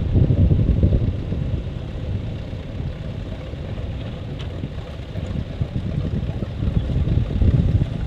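John Deere tractor's diesel engine running under load as it pulls a reversible plough through stubble: a low, uneven rumble that eases off in the middle and swells again near the end.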